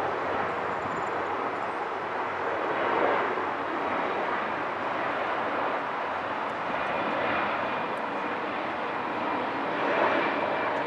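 Jet engine noise from a Boeing 777-300ER's twin GE90-115B turbofans as the airliner passes overhead on approach with its landing gear down: a steady rushing noise with slight swells about three seconds in and near the end.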